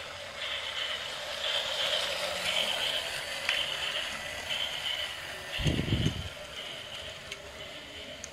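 FenFa toy steam train running on plastic track: a steady motor hum with a rhythmic hiss that swells about once a second. A brief low thud about six seconds in is the loudest sound.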